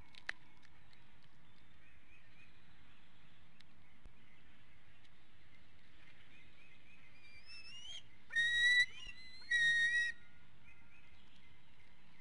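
Juvenile bald eagle calling: a run of rising whistled notes, then two loud, high, whistled squeals about a second apart, each about half a second long. Calls like these from an eaglet while food is on the nest are typical of food begging.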